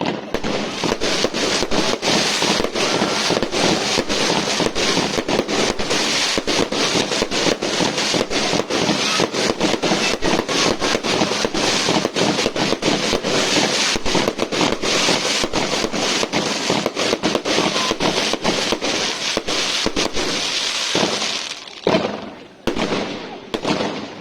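Diwali fireworks going off in a rapid, nearly continuous run of sharp bangs and crackling. Near the end the barrage breaks off into a few separate bangs.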